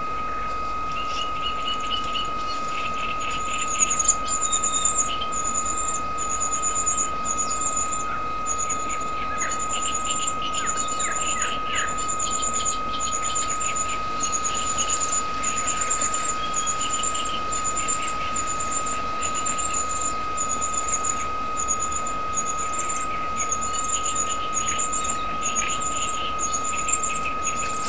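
Common cuckoo chick begging for food: a long series of short, thin, high-pitched calls, about one every 0.7 s, starting about four seconds in. A steady high whine runs underneath.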